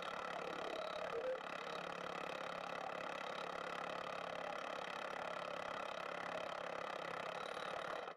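An engine idling steadily with an even hum, cut off suddenly at the very end.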